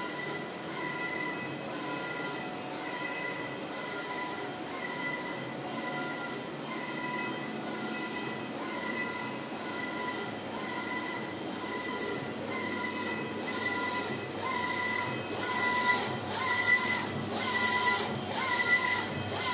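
Textek 60 cm UV DTF printer running: the print carriage shuttles back and forth, its motor whining in short, evenly spaced stretches over a steady mechanical hum. Near the end the whine gets louder and rises slightly in pitch at the start of each pass.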